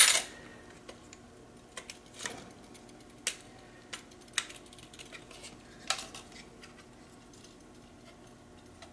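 Aluminium antenna elements and a plastic mounting bracket being handled and fitted together: scattered light metallic clicks and taps, with the loudest knock at the very start.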